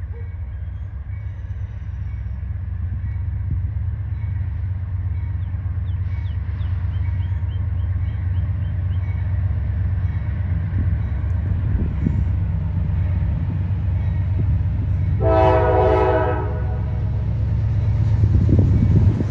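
CSX diesel freight locomotive approaching with a steady low engine rumble that grows louder as it nears. About fifteen seconds in, its air horn sounds briefly, the loudest sound.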